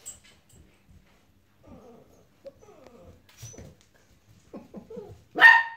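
Puppy making a few soft, short cries, then one loud, high-pitched bark near the end.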